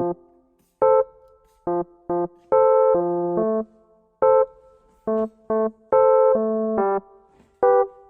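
Background music: a bouncy electric-piano tune of short, detached chords with gaps between them.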